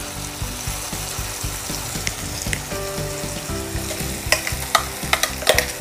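Ground tomato and green chilli chutney sizzling as it is poured into hot tempering oil in a kadai. A few sharp clinks near the end, a spoon against the steel mixer jar as the paste is scraped out.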